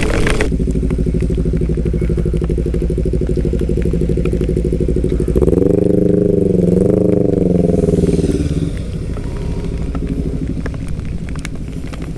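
Yamaha Aerox 155 scooter's engine running at low speed and idling in stopped traffic, a steady hum after a brief rush of wind and rain noise at the start. From about five and a half seconds a louder engine note wavers up and down in pitch for about three seconds, then drops back to a quieter idle.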